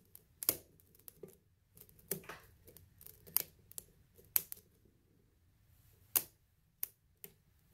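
Lock pick and tension wrench working in a lock's keyway, making sharp, irregular metallic clicks and ticks as the pins and core are worked, with about seven louder clicks among fainter ones.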